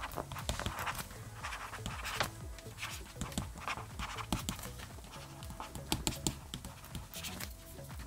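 Stylus nib scratching across an e-ink tablet's screen in short, irregular strokes of handwriting, close to the microphone, over quiet background music.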